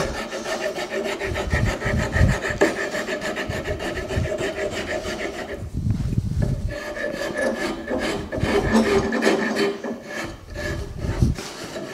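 Nicholson No. 50 cabinet rasp, with randomly placed teeth, stroked quickly back and forth over a wooden spoon's bowl, shaping it. A rhythmic rough scraping of the rasp on wood, easing briefly about halfway through.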